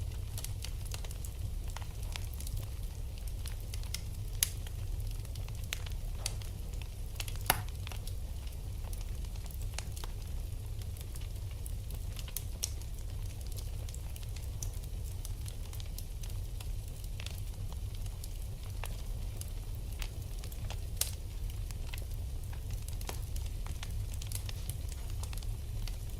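Wood fire in a fireplace crackling: irregular sharp pops and snaps, a few much louder than the rest, over a steady low rumble of the burning fire.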